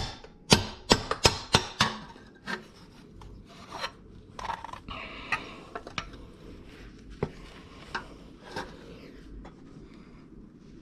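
Metal tool knocking and scraping at a rusted CV axle joint: a quick series of sharp knocks in the first two seconds, then scattered lighter knocks and rubbing.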